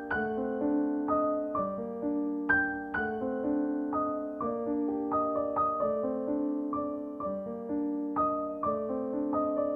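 Background solo piano music: a slow, gentle piece of single notes struck about every half second over held lower notes.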